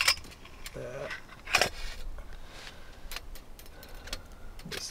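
Thin metal bars clinking against the metal walls of a Bushbox XL folding twig stove as they are lifted out and handled. A handful of sharp clinks, the sharpest right at the start and about a second and a half in.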